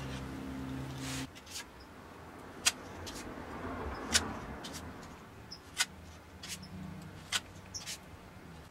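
Background music stops about a second in. Then come a handful of sharp, separate clicks and taps from hand tools, a scraper and a sponge, working against the painted board over a low steady background noise.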